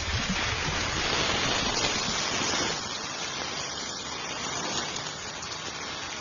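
Steady rushing hiss of noise, a little softer from about three seconds in.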